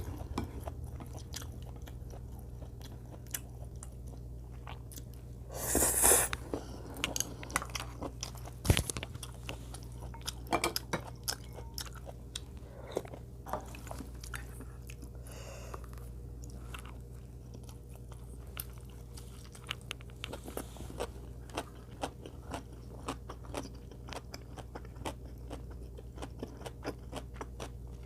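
A person chewing and biting food close to the microphone, with many small wet clicks. There is a louder noisy burst about six seconds in and a sharp click a few seconds later.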